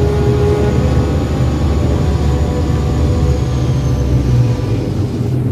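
Steady low engine rumble of a Thames Clipper river boat under way, easing slightly about four and a half seconds in.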